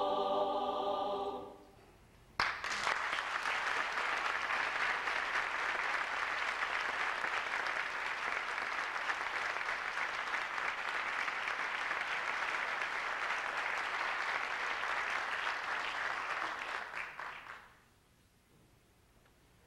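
A choir holds its final chord, which stops about two seconds in. The audience then breaks into steady applause that lasts about fifteen seconds and dies away near the end.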